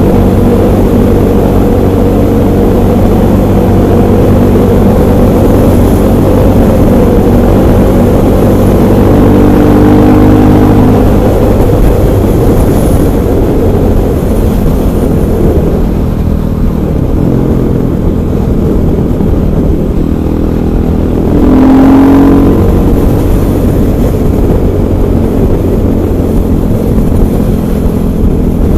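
KTM 500 EXC supermoto's single-cylinder four-stroke engine running under way, its pitch rising briefly about ten seconds in and again a little past twenty seconds as the throttle is opened.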